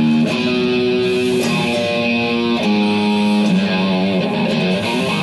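Music led by a guitar: loud, held notes that step to a new pitch every second or so, wavering in pitch around the middle.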